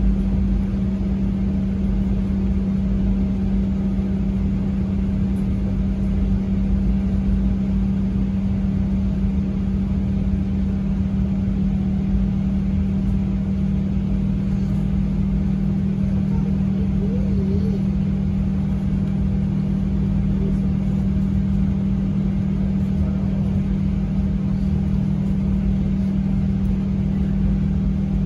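Steady vehicle drone: a constant low hum over an even rumble, unchanging throughout.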